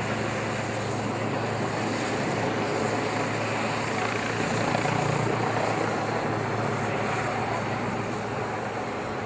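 Helicopter in flight, its rotor and turbine giving a steady whirring noise with a constant low hum.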